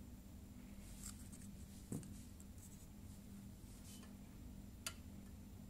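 Faint scratching and small clicks of hand tools and a tiny circuit board being handled at a soldering bench, with two sharper clicks about two seconds in and just before the end, over a low steady hum.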